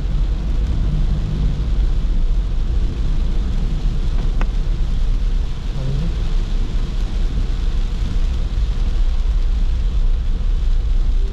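Car on the move: a steady low engine drone under an even hiss of road and tyre noise, with a single short click about four seconds in.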